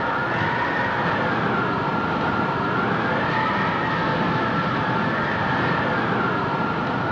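Strong wind blowing hard and steadily, with a high tone over it that slowly rises and falls every couple of seconds.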